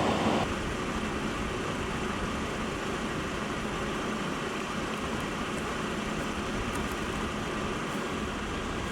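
Steady low rumble and hiss of a vehicle engine idling.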